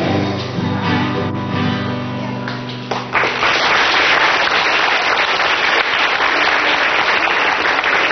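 A song ends on a held final chord with acoustic guitar; about three seconds in, the chord stops and an audience breaks into applause, which is louder than the music and keeps on.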